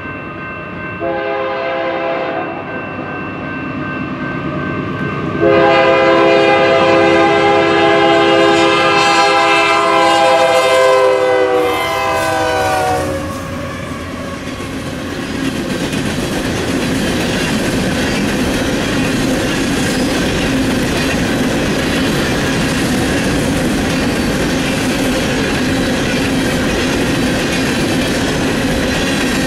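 Freight locomotive's air horn sounding a short blast and then a long one that drops in pitch as the locomotive passes. Then the steady rumble and clickety-clack of the freight cars rolling by.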